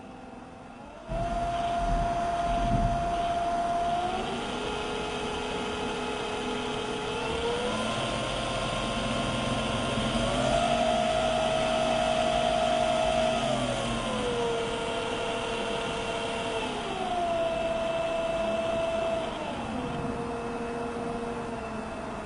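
Permanent-magnet DC motor on a PWM speed controller, switched on about a second in and running with a steady whine whose pitch steps up and down several times as the speed is adjusted.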